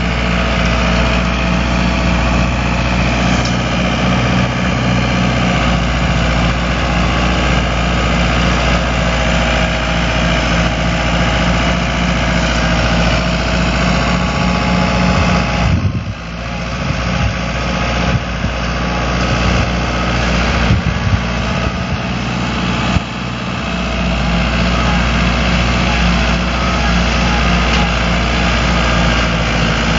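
Fiat 766 tractor's diesel engine running steadily, driving a rear-mounted Agram rotary slasher cutting grass and brush. About halfway through, the sound dips for several seconds, with a couple of sharp knocks, before the steady drone returns.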